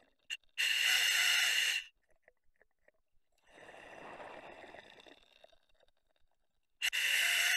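Diver breathing through the demand regulator of a full face scuba mask. A hiss of inhalation comes about half a second in, then a quieter, lower rumble of exhaled bubbles mid-way, and a second inhalation hiss near the end.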